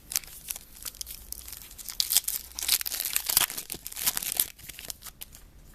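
Crinkly wrapper of a Topps football trading-card pack being torn open and crumpled by hand, in irregular rustling bursts that are loudest in the middle.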